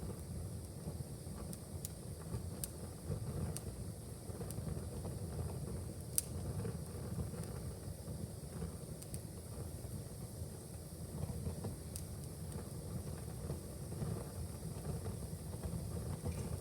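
Wood fire burning in a fireplace, crackling: a steady low rumble with scattered sharp pops, the loudest about six seconds in.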